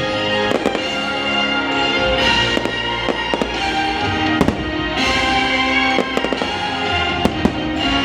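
Firework shells going off in a string of sharp bangs over a loud orchestral fireworks-show soundtrack.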